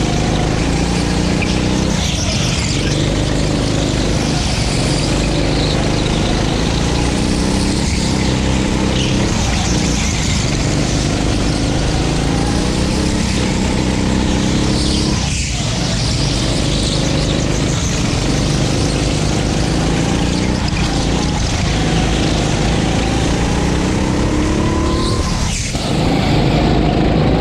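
Go-kart's 9 hp engine running hard through a race lap. Its pitch climbs and falls, with short dips every few seconds as the throttle is lifted for corners.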